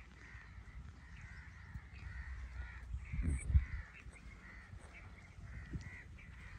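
Crows cawing repeatedly, many short calls overlapping. A few low thumps sound near the middle, the loudest about three and a half seconds in.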